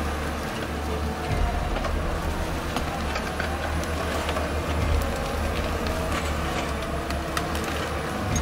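Eight-wheeled amphibious all-terrain vehicle's engine running under steady load with a constant low drone, plus scattered clicks and knocks, as it drives through an ice-choked river.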